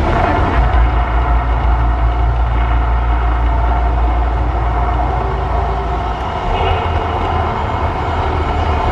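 The Mirage volcano show erupting: a loud, deep, steady rumble from its dramatic soundtrack and eruption effects.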